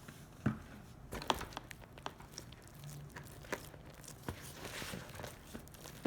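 Naan dough being mixed in a bowl: a utensil knocking irregularly against the bowl, with short stretches of scraping and squishing noise as the dough is worked.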